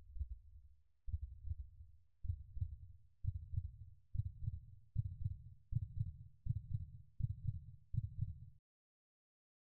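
Low, heartbeat-like double thuds, about one a second at first and quickening to about two a second, then stopping about a second before the end.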